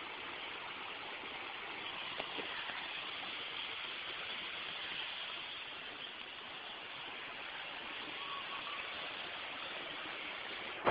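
Water of a shallow, rocky stream running steadily over stones.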